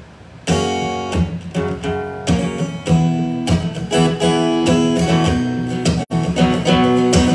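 Acoustic guitar strummed in chords, starting about half a second in: the opening of a song in the key of F sharp. There is a very brief break in the sound just after six seconds.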